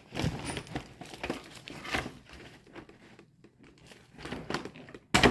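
Toy packaging crinkling and being pulled at by hand in an attempt to tear it open, in irregular crackles, with one loud sharp rip near the end.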